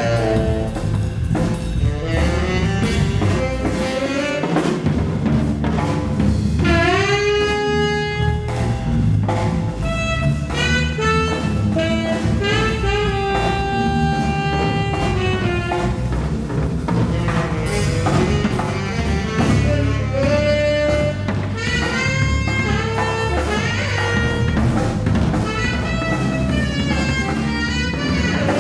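Live jazz combo: a saxophone solos over drum kit and electric bass, the lead line mixing quick runs with a few long held notes.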